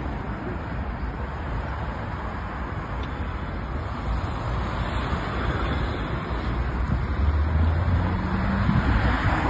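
Road traffic at a street junction: cars driving past with engine rumble and tyre noise, getting louder in the second half as vehicles pass close.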